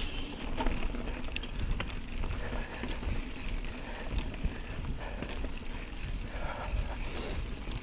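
Mountain bike riding fast down a dirt forest singletrack: tyres rolling over the dirt and the bike rattling with scattered clicks over bumps, under a steady low rumble of wind on the microphone.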